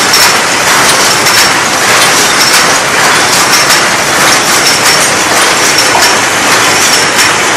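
Paper cup forming machine running, a loud, steady mechanical clatter with rapid, evenly repeating clicks.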